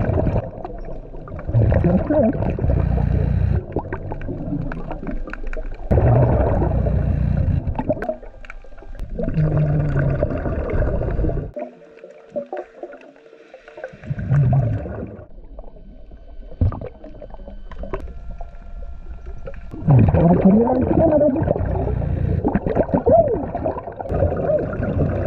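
Underwater scuba breathing: a diver's exhaled bubbles gurgling out of the regulator in bursts a few seconds long, with quieter inhale gaps between.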